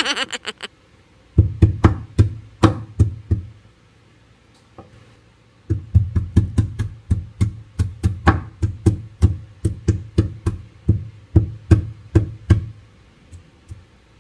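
Ginger being pounded flat on a wooden chopping board, giving a series of sharp knocks with a dull thud under each. A short run of blows is followed by a pause of about two seconds, then a longer steady run at about three blows a second. There is a brief jangling clatter at the very start.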